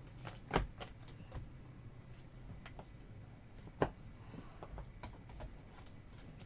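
Scattered sharp clicks and taps of trading cards and packs being handled on a table, the two loudest about half a second and nearly four seconds in.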